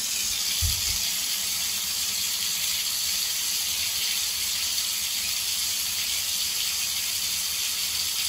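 Water running steadily from the spout of a thermostatic bath mixer into a bathtub: an even hiss of falling water.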